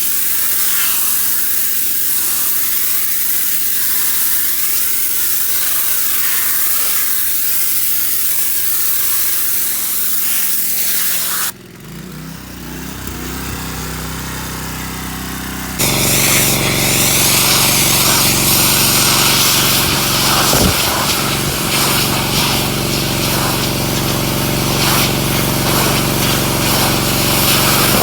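Gas-engine pressure washer: a high-pressure water spray hissing over the engine's steady run. About eleven seconds in the spray cuts off abruptly, leaving the engine running. About four seconds later a louder spray-and-engine sound starts again.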